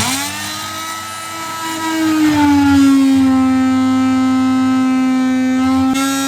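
Handheld power tool switched on and running under load while cutting, a steady pitched drone whose pitch sags slightly about two and a half seconds in as it bites.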